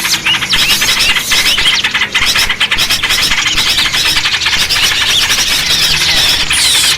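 Dense chatter of many small birds: rapid, overlapping high chirps and short falling whistle notes with no let-up. This is a bird-lure (pikat) recording of a noisy flock, played to draw small birds in.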